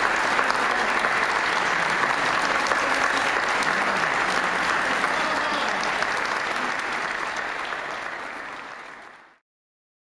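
Audience applauding, a dense clatter of many hands clapping, fading out near the end.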